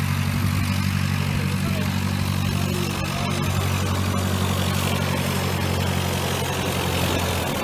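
Cessna 152 light aircraft's four-cylinder Lycoming O-235 engine and propeller running at low taxi power, a steady low drone.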